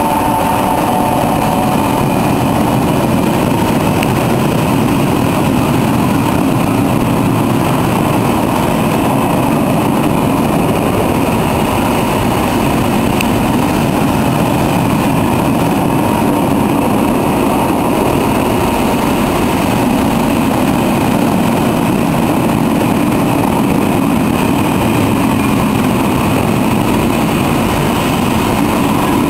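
Freight wagons rolling past close by: a steady, loud rush of steel wheels on rail, with a high tone from the passing electric locomotive fading out in the first second.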